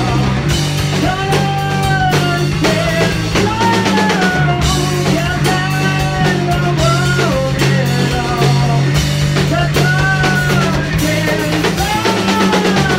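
A rock band playing live: a singer's voice over a drum kit, electric guitar and bass guitar.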